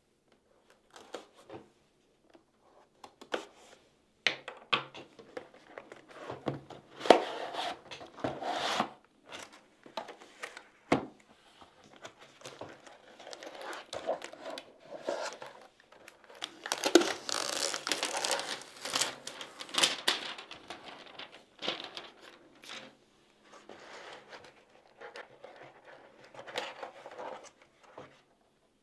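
Packaging being opened: a blade slitting the seal on a retail box, cardboard boxes slid apart and handled, and plastic wrapping crinkled and torn off, with scattered clicks and knocks. The crinkling is loudest a little past halfway through.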